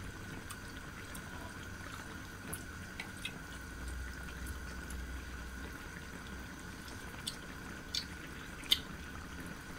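Quiet eating sounds: a person chewing a mouthful of stew, with a few light clicks scattered through, the sharpest two near the end, over a steady faint hum.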